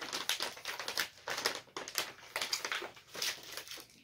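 Plastic wrapper of a bag of Sakura Sake Kit Kats crinkling and crackling as it is handled, a dense run of irregular crackles.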